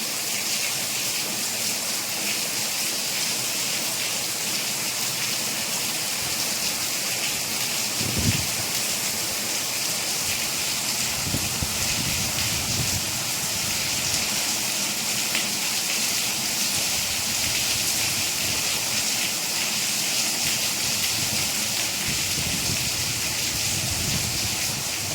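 Steady rain falling, an even hiss with no let-up, with a brief low thump about eight seconds in.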